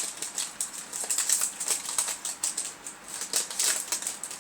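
Yu-Gi-Oh! booster pack and trading cards being handled, a rapid run of crisp crinkling and rustling.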